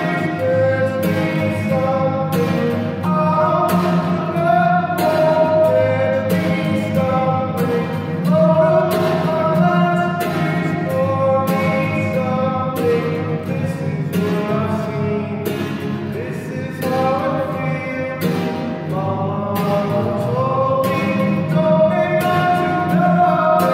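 A man singing, with long held notes, over a steadily strummed acoustic guitar.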